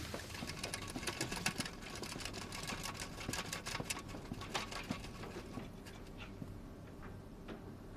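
Kitchen clatter: rapid knife chopping on a cutting board and utensils clicking, thinning out after about four seconds to a few scattered clicks over a faint steady hum.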